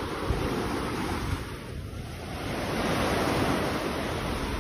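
Ocean surf rushing in a steady wash of noise that eases a little about a second and a half in, then swells again.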